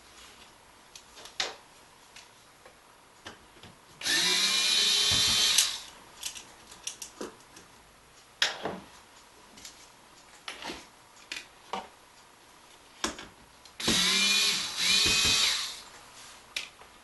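Cordless electric screwdriver running twice, about ten seconds apart, each time for a second or two with a whine that rises in pitch, backing screws out while the drum module is taken apart. Light clicks and taps of screws and parts being handled come in between.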